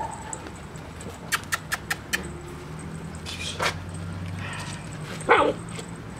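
Black German Shepherd puppies at play: a quick run of sharp clicks a little over a second in, then a single short puppy yelp that falls in pitch about five seconds in, over a low steady hum.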